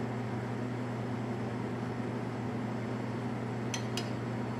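Large stainless pot of water at a boil, giving a steady rushing noise over a constant low hum. Two light metallic clicks come a little before the end, as the wire skimmer touches the pot.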